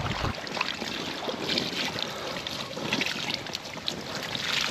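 Water splashing and dripping in small, irregular splashes as a large mirror carp is lifted and handled in a wet landing net.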